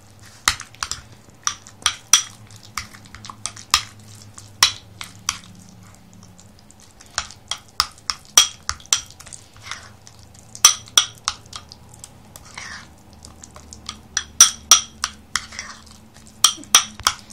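A spoon clinking and scraping against a bowl while stirring thick sour cream mixed with grated cheese and garlic: sharp, irregular clicks, several a second, with a couple of short pauses.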